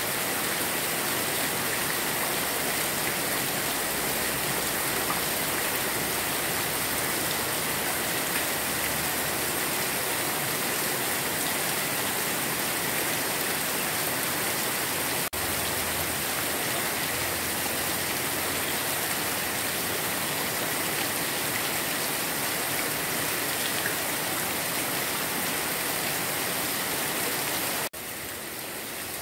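Heavy rain falling steadily on grass and leaves, a dense, even hiss of drops; it turns a little quieter near the end.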